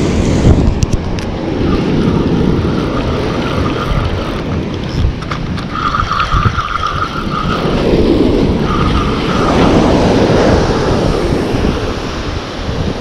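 Penn Slammer spinning reel whirring in several spells while a hooked jack is fought on the line, over a steady rumble of wind and surf.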